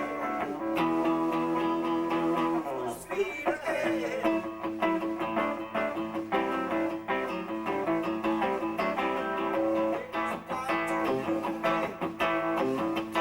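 Live blues-rock band with guitar to the fore, playing an instrumental passage: held chords, pitch bends about three seconds in, then quick picked notes.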